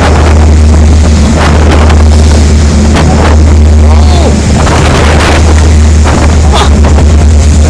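Fishing boat's engine running with a steady low drone under a loud rush of water and wind in rough sea. Several louder surges come as waves break against the hull.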